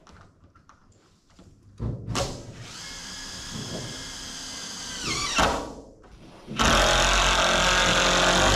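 Cordless power drill/driver driving a fastener through a rim joist into a pole-barn post. It runs for about three seconds and winds down with a falling whine. After a brief pause it starts again, louder and rougher.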